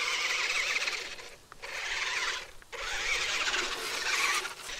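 Ruko 1601AMP amphibious RC car's electric drive motor and plastic gearbox whining with a gritty rattle as it is driven on grass, cutting out briefly twice in the middle when the throttle is released.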